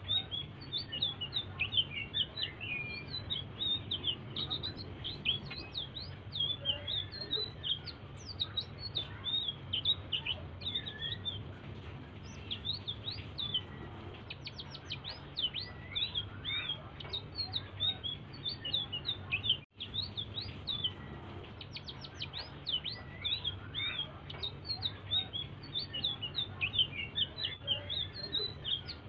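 Selendang biru songbird singing a rapid, unbroken stream of high chirps and quick downward-sweeping notes, a soft song used as a lure (pancingan) for other birds. A low steady hum lies underneath, and the sound cuts out for a moment about two-thirds of the way through.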